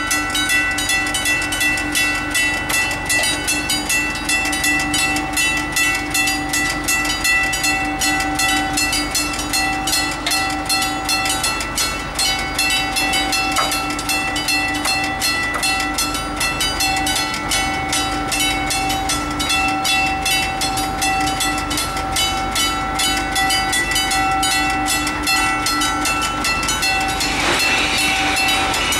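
Level-crossing warning bell ringing with rapid, evenly repeated strokes as the half-barriers lower for an approaching train. Near the end a noisier, rushing sound joins in.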